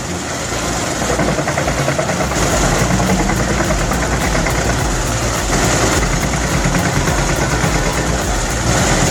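A large wood chipper's engine running steadily, with a fast, even pulsing.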